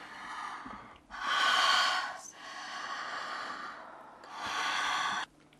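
A woman in labour breathing heavily through her mouth: two long, forceful breaths about three seconds apart, the first louder, with quieter breathing between them, as she pushes in the final stage of labour just before the birth.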